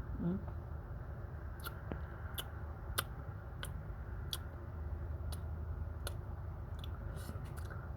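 Close-up mouth sounds of eating passion fruit: a string of short, sharp clicks and crunches as the pulp and seeds are chewed, coming irregularly about once a second over a steady low rumble.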